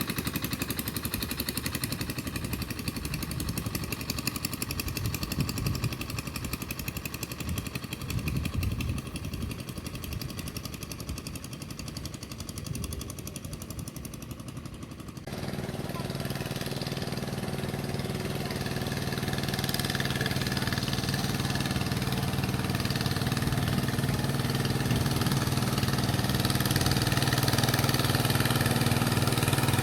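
Boat engine running steadily. About halfway it changes suddenly to a louder, more even hum that grows gradually louder.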